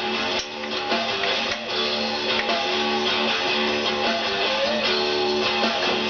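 Background music: an instrumental stretch of a guitar-led song with strummed guitar.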